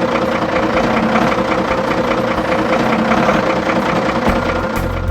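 Heavy truck engine idling steadily, with a deeper rumble coming in near the end.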